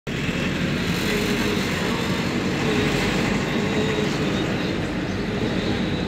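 Steady road and engine noise of a moving vehicle heard from inside, with a faint wavering whine.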